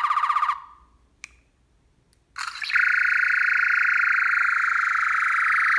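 Synthesized sci-fi blaster effects from a Plecterlabs SonicCore V2 sound board played through the pistol's small speaker: a short buzzy burst that ends just after the start, a click about a second in, then a long steady buzzing tone with a fast pulse from about two and a half seconds in.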